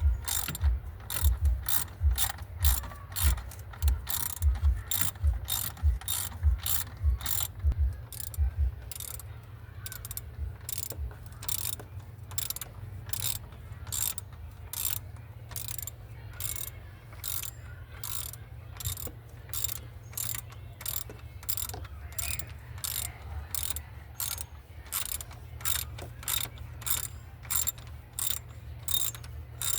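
Hand ratchet wrench clicking in steady strokes, about two a second. Each stroke also carries a duller low knock for roughly the first nine seconds.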